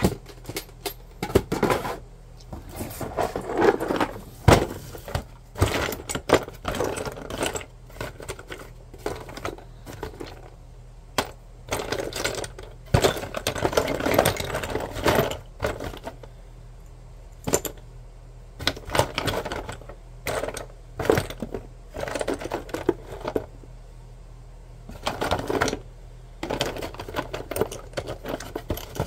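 Small plastic wheels, casters and knobs clattering against each other in a cardboard box as a hand rummages through them: irregular runs of clicks and knocks with short pauses between.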